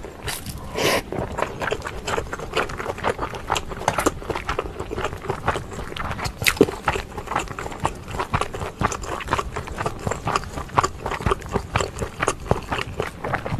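Close-miked chewing of pork and kimchi stew: a dense, continuous run of small wet mouth clicks and smacks, with a few sharper clicks in between.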